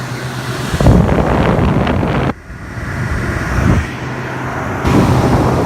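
Frigidaire 8000 BTU window air conditioner running on its maximum fan speed with the compressor on: a steady hum under a loud rush of air, with the airflow buffeting the microphone. The rush swells a little under a second in, drops sharply a little over two seconds in, then builds back.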